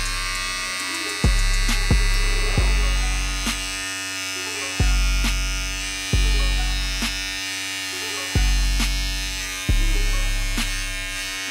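Bevel Pro all-in-one clipper and trimmer running with a steady electric buzz, held near the microphone, over background music with a deep bass line and a regular beat.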